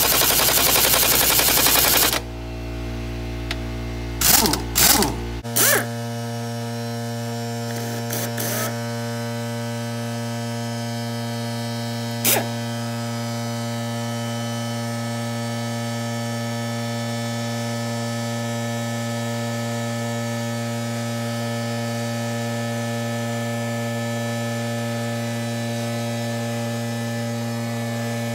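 Pneumatic impact wrench hammering on the hex shaft of a Gravely cultivator gearbox, trying to break it loose: one long burst of about two seconds at the start, then three short bursts a few seconds later. A steady hum runs under it all.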